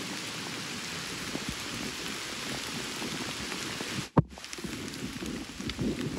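Heavy rain pouring down steadily. A sharp click breaks it about four seconds in.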